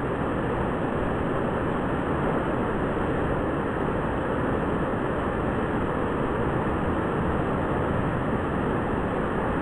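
Waterfall pouring down into a pool inside a narrow rock cave: a steady, unbroken rush of falling water, heaviest in the low range.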